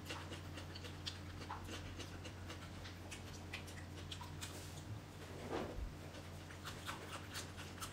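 Faint eating sounds: chewing and mouth noises with scattered small clicks of chopsticks against a bowl, over a steady low hum.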